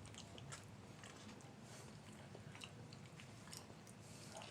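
Faint chewing, a scatter of soft mouth clicks and ticks.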